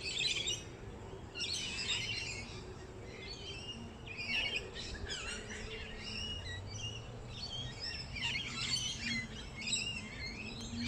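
Songbirds chirping and twittering in repeated short bouts of quick notes, with a faint low steady hum underneath.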